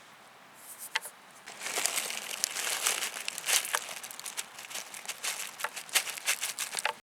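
Crinkling, crackling handling noise, like plastic or foil packaging being crumpled. It starts faintly, then turns loud and dense about a second and a half in, full of sharp crackles.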